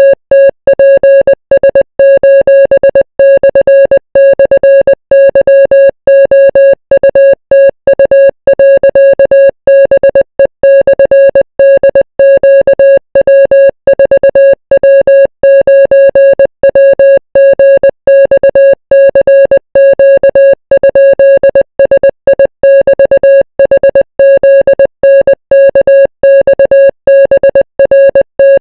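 Morse code sent as an electronic beep tone at one steady mid pitch, keyed on and off rapidly in dots and dashes.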